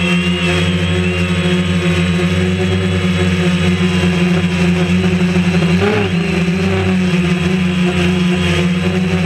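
DJI Phantom quadcopter's electric motors and propellers buzzing steadily in flight, heard from the camera mounted on the drone, with a brief wobble in pitch about six seconds in.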